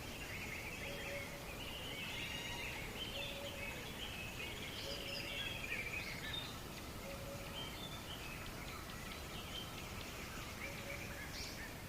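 Steady rush of flowing water with birds chirping busily over it, and a short low call repeating about every two seconds.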